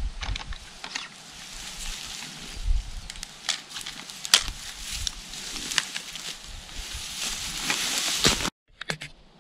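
Dry grass and clothing rustling with scattered clicks and knocks from a rifle being handled, the sharpest knock about four seconds in. The rustling builds, then cuts off abruptly about eight and a half seconds in.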